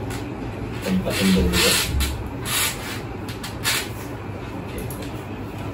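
Handling noise from a Crossmac Haagen 90 folding bike being folded: rubbing and scraping as its parts are moved, in several short bursts.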